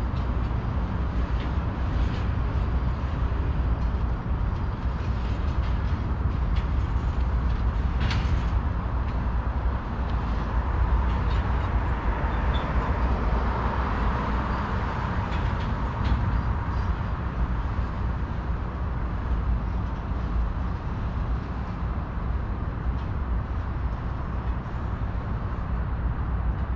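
Steady low diesel rumble of a Union Pacific freight locomotive standing on the track with its engine running. A car passes on the road about eleven to sixteen seconds in, briefly adding a swell of tyre noise.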